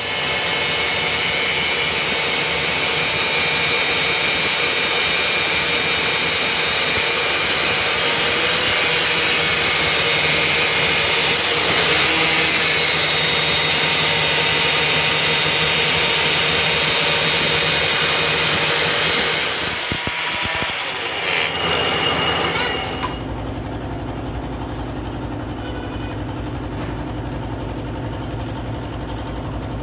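Handheld angle grinder grinding the surface of a truck suspension trunnion shaft spinning in a lathe, a loud steady grinding. About twenty seconds in the grinding stops, leaving the lathe running with a quieter low hum.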